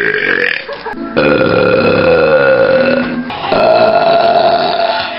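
A boy burping loudly: the tail of one belch, then two long drawn-out belches of about two seconds each.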